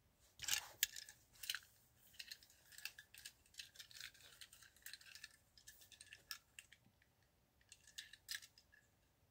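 Faint, irregular clicks and light rattles of small hard objects being handled, clustered in quick runs with a last pair of clicks near the end.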